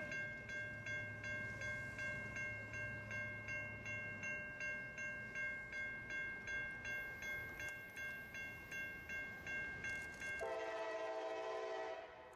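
Railroad grade-crossing bell ringing steadily at about two to three strokes a second, then a locomotive horn sounding one chord for about a second and a half near the end.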